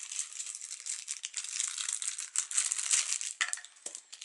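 Thin clear plastic bag crinkling and rustling in the hands as it is opened, a dense run of crackles that thins briefly near the end.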